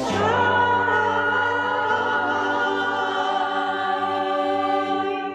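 A choir singing, moving onto a new chord and holding it out, with the sound just beginning to fade at the very end.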